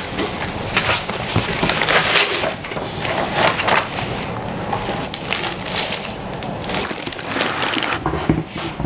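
Cardboard box flaps and white foam packing blocks being handled: irregular rustling, scraping and creaking as the box is opened and its contents are lifted out.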